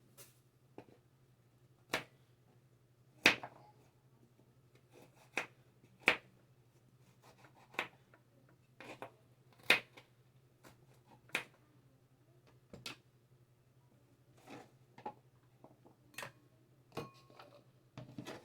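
Kitchen knife cutting carrots on a cutting board: sharp, irregular knocks, roughly one a second, over a faint steady low hum.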